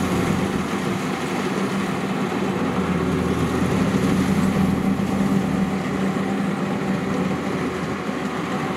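Rice combine harvester's diesel engine running steadily, a constant even drone with a strong low hum and no change in pace.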